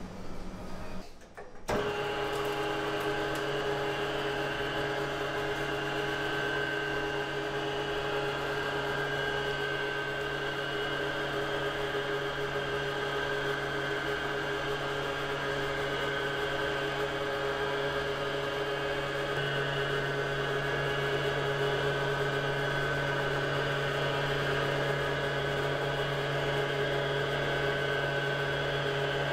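Electric motor of a food-processing machine starting up about two seconds in, then running steadily with a constant hum. It grows slightly louder about two-thirds of the way through.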